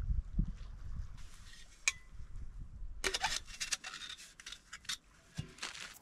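Light clicks, clinks and rustling of small objects being handled: a sharp click about two seconds in, a busier stretch of rustling and clicks around the middle, and another knock near the end.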